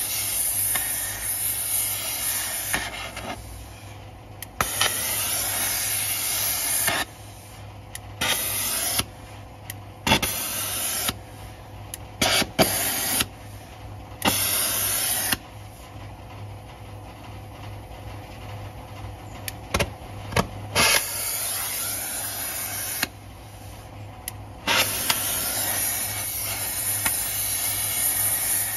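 Oxy-fuel gas torch hissing as its flame is played on a truck wheel hub. The hiss swells loud and falls back again and again, with a few sharp clicks in between.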